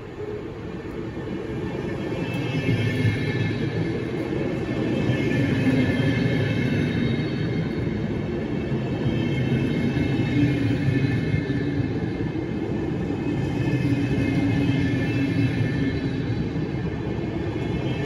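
A train passing through a railway station, growing louder over the first two or three seconds and then running steadily, with high whining tones over a low rumble.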